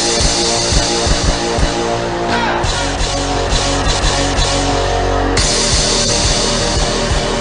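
Loud rock music with a drum kit starting abruptly, no singing yet; a heavier bass beat fills in about two and a half seconds in.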